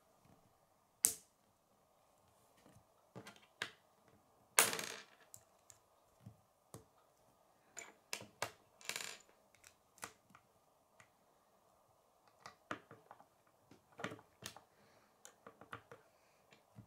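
K'nex plastic rods and connectors clicking and snapping together as they are handled and assembled, in irregular scattered clicks with a couple of short rattles, the loudest about four and a half seconds in.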